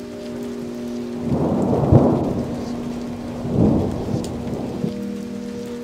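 Steady rain with thunder rumbling twice: a louder roll about a second and a half in, then a shorter one near four seconds. Faint steady tones hum underneath.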